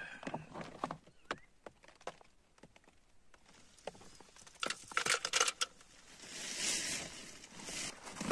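A dense run of small sharp clicks and plops about five seconds in, as a handful of dry pasta is dropped into a steaming tin-can pot. Just before it come a few light handling clicks, and after it a soft rustle.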